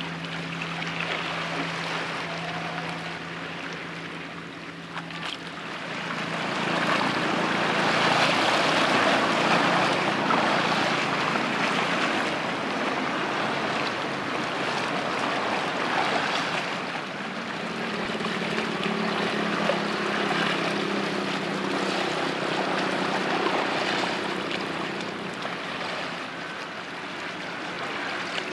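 Cruise ship moving slowly through harbour water: a steady rushing of water with a faint low machinery hum underneath. The rushing swells for several seconds and then eases.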